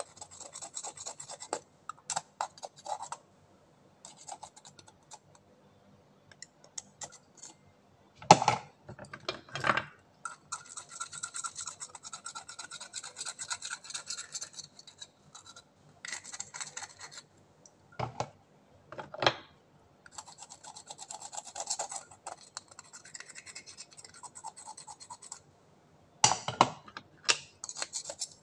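Knife blade scraping mussel shells clean, a scratchy rasping in stretches with short pauses between strokes. A few sharper knocks stand out along the way.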